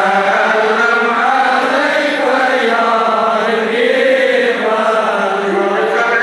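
Congregation of men reciting Darood, salutations on the Prophet, in chorus: a continuous unison chant, with long drawn-out notes that rise and fall slowly.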